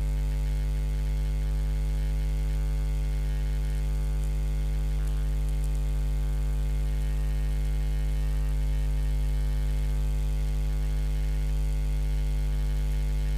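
Steady electrical mains hum: a constant low buzz with a stack of overtones, unchanging throughout.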